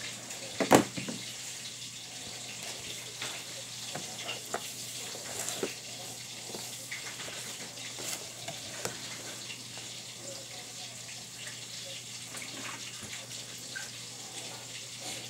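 Crappie fillets frying in a skillet of hot grease: a steady sizzle with scattered crackles and pops, and one sharper pop or knock just under a second in.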